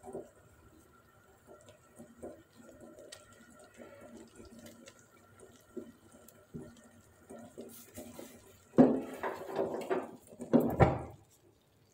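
Wooden spoon stirring thick milk custard in a steel pot, with soft, irregular wet sloshing and scraping as crumbled bread is folded in, and two louder bursts of stirring near the end.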